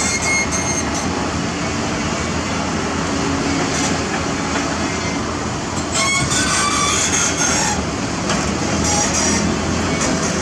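Heavy construction machinery running steadily at work, with a few sharp clanks near the start and again about six seconds in.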